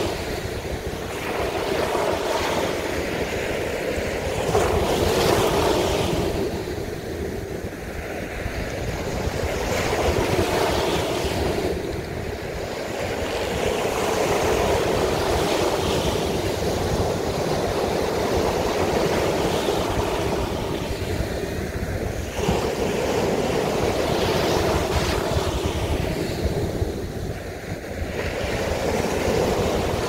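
Sea surf breaking and washing up a sandy beach, swelling and ebbing every five seconds or so, with wind rumbling on the microphone underneath.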